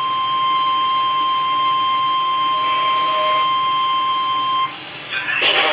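Emergency alert tone: a single steady tone near 1 kHz, the 1050 Hz warning alarm tone used by NOAA Weather Radio to announce an alert. It cuts off about four and a half seconds in, and after a short gap a louder noisy sound starts just before the end.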